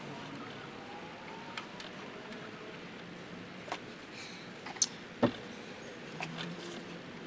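A few sharp clicks and taps from hand work in an engine bay as the bolts of a thermostat housing are handled and fitted, the loudest two close together about five seconds in, over a quiet steady background.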